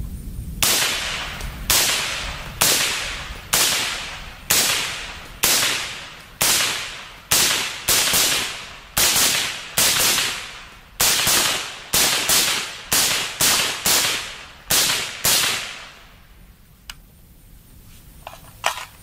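Suppressed Bushmaster ACR semi-automatic rifle firing .223 rounds one at a time, a steady string of sharp shots about one a second, a few coming a little quicker. The suppressed rounds still crack because the bullets break the sound barrier. The firing stops a few seconds before the end, leaving only a few light clicks.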